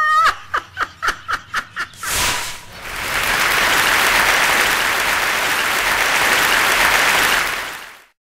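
A rhythmic 'ha ha ha' laugh, then applause from about two seconds in that holds steady and fades out near the end.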